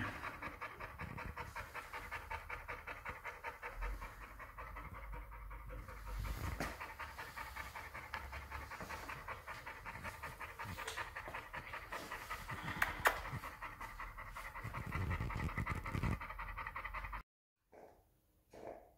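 Mixed-breed boxer-type dog panting in a steady, quick rhythm of breaths, with a sharp click about 13 seconds in; the panting cuts off suddenly near the end.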